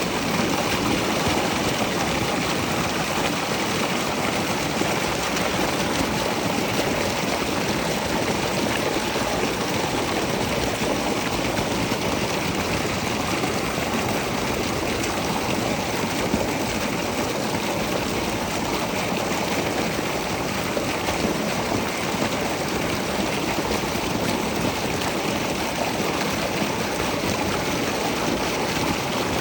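Running water rushing steadily, a stream or small waterfall.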